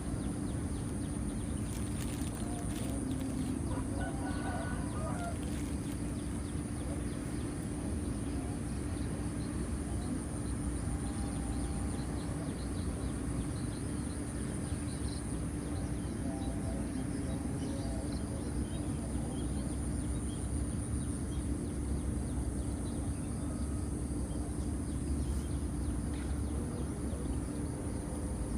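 Outdoor lakeside ambience: a steady high-pitched insect drone over a constant low hum, with a short bird call about four seconds in.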